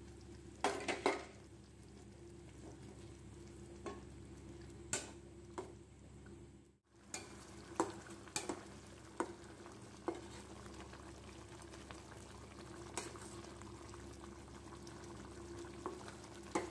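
White plastic spatula stirring a coconut-milk chicken curry in a stainless steel pot: about a dozen scattered taps and scrapes against the pot. Under them runs a steady faint hiss of the gravy simmering.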